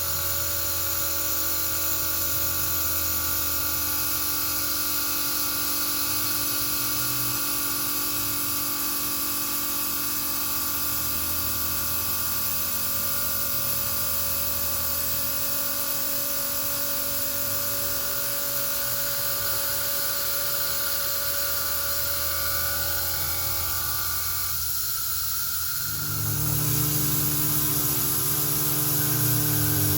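CNC milling machine running, its spindle giving a steady high whine over a hiss of cutting and coolant noise. About 25 seconds in the tones change and a lower hum comes in, as the machine moves to another part of its program.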